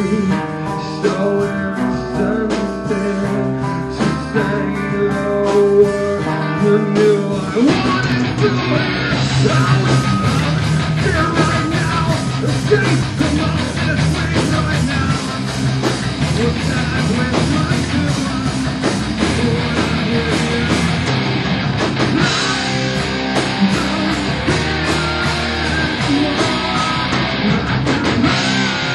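Rock band playing a song with guitar and drums. The first part has clearly separate guitar notes; about seven and a half seconds in, the full band comes in at once with a much denser, fuller sound.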